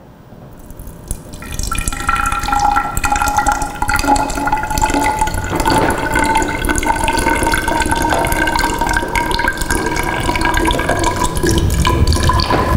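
Water pouring in a thin stream from the spout of an overflow vessel into a glass graduated cylinder, starting about two seconds in. A ringing tone in the pour rises slowly as the cylinder fills. This is the water displaced by a solid lowered into the vessel, its volume equal to the body's volume.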